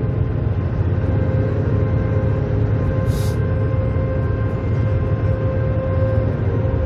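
Steady low drone of a semi-truck's engine and tyres heard inside the cab at highway speed, with a few held tones over it and a short hiss about three seconds in.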